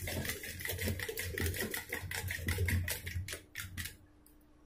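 Wooden hand churner (madhani) spun back and forth between the palms, whisking curd in a steel pot: a rapid rhythmic clatter that stops about four seconds in.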